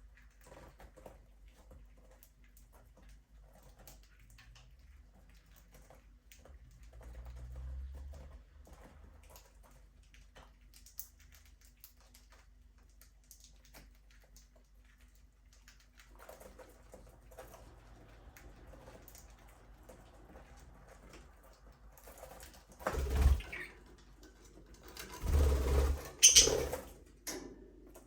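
Budgies moving about in an aviary: faint scattered scratching and pecking clicks, with two louder rustling flurries near the end.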